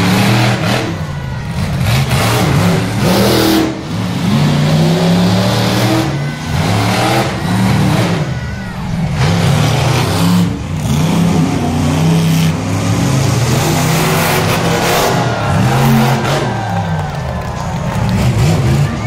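Monster truck engine revving hard, its pitch climbing and dropping over and over.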